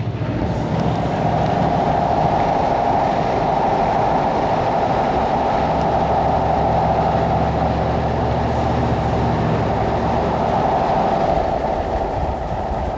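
Steady driving drone heard inside an old Cadillac's cabin at highway speed: road, tyre and engine noise that swells a little about a second in and eases near the end.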